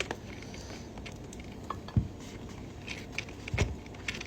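Scattered light clicks and handling noises, with a low thump about two seconds in and another about three and a half seconds in, over a steady room background.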